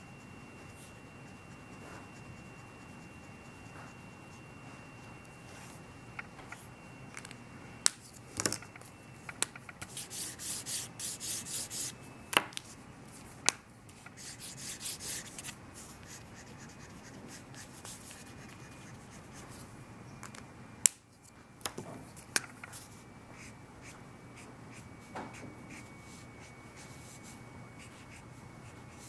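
Felt-tip marker rubbing over paper in quick back-and-forth shading strokes, in a run about ten seconds in and another shortly after, with a few sharp clicks between.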